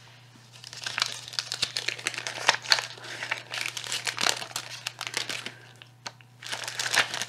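Clear plastic backing sheet of stick-on gems crinkling and crackling as it is handled and gems are picked off it with tweezers, in a run of irregular crackles with a short pause near the end.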